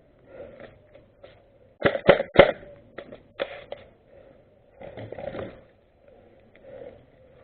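Three sharp knocks in quick succession, about a quarter second apart, then a few lighter clicks and a brief rustle.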